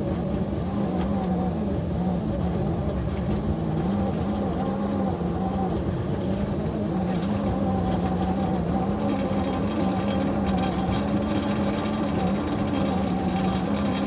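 Engine of a ridable backyard railroad locomotive running steadily, its pitch wavering slightly, as it works to push a snow plow.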